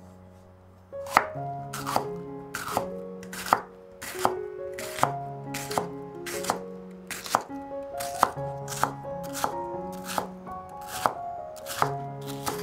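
A knife chopping on a cutting board, about two cuts a second, starting about a second in, over background music with held notes.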